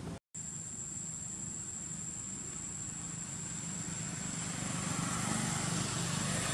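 Steady low motor-like drone, with a thin, steady high whine above it; the sound cuts out for a moment just after the start.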